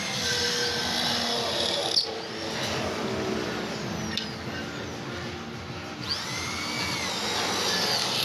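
Handheld electric power tool running on steel work, its high whine sweeping up and down in pitch, with a few sharp clicks.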